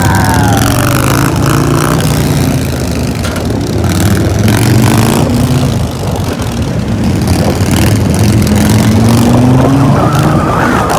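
Motorcycle engines running at highway speed under heavy wind noise on a helmet-mounted camera. The engine pitch rises and falls as the throttle is worked through a long wheelie.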